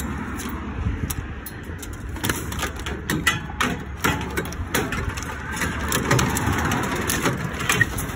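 Road traffic going past on a busy road, with a car swelling by around the middle, and many scattered knocks and rattles of scrap metal being moved on an open trailer.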